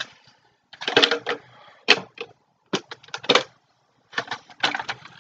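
Hard plastic parts of a toy crossbow clicking and clattering in the hands as it is handled and fitted together, in several short irregular bursts.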